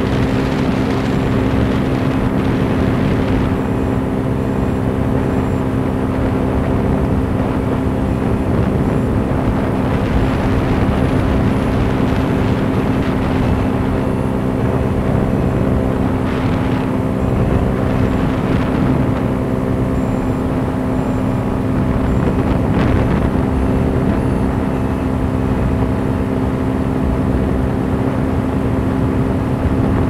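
Powered paraglider's paramotor engine and propeller running steadily at an unchanging pitch in flight.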